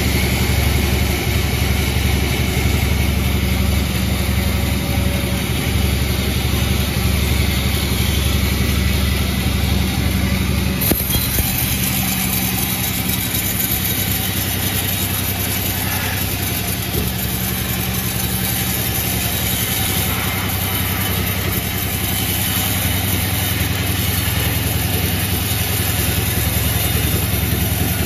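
Sawmill machinery running with a steady, loud low hum, its upper sound shifting about eleven seconds in.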